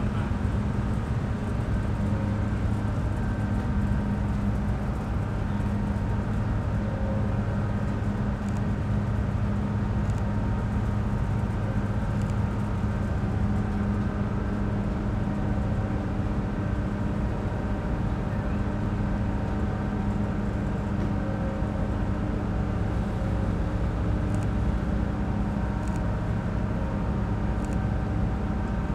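Steady drone of the Queen of Capilano ferry's engines under way: a low hum with several steady tones above it, unchanging throughout.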